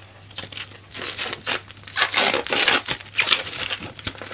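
Plastic cling film crinkling and rustling as it is peeled off a foam tray of ground meat, a run of rapid crackles that grows louder about halfway through.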